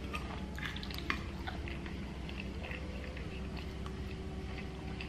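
Close-miked wet chewing and mouth sounds of a man eating pot roast and cabbage, with small, scattered moist clicks and smacks.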